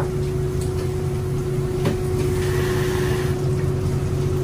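Fishing boat's engine running steadily: a low rumble with a steady hum, and a single click about two seconds in.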